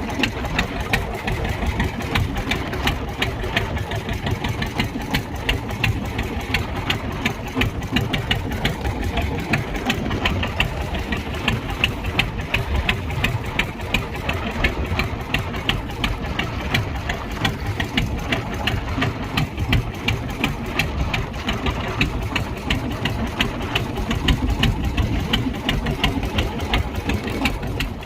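Engine running steadily with a fast, even knocking rhythm.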